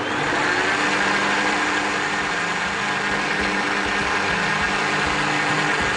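Countertop blender motor running steadily, whipping liquid cake batter in its jar.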